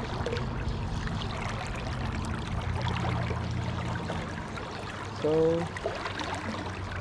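Creek water flowing steadily around a wading angler, a continuous rushing and trickling.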